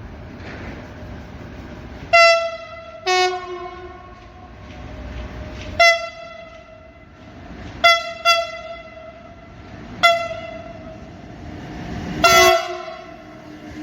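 Locomotive horn giving seven short blasts, two of them with a lower second tone, over the steady rumble of a passing train.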